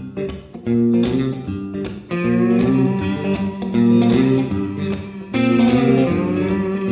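Background music led by guitar, strummed chords that change about once a second.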